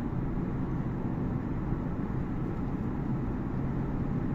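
Steady road and wind noise inside the cabin of an all-electric Genesis GV70 SUV cruising at about 100 km/h, mostly a low rumble with no engine sound. This is the car before any sound-deadening, reading about 61 dB and called very quiet already.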